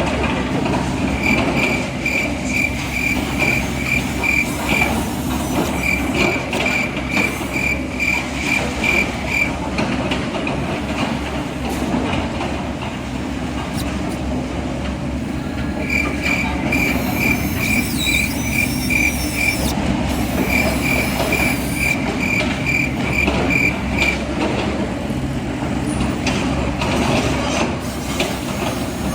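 Reversing alarm of an RC construction model beeping in runs of a few seconds, about two and a half beeps a second, over a steady low rumble of the models' engine sound.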